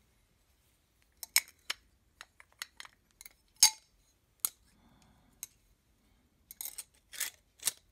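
Glass damselfly wings clinking against one another and against the copper wire body as they are handled: a string of irregular sharp clinks, the loudest about three and a half seconds in, with a quick cluster near the end.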